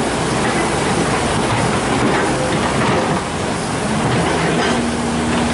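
Kobelco SK130 excavator running as its steel crawler tracks clatter through shallow, rushing floodwater. The engine, the track noise and the water blend into one steady, loud wash of sound.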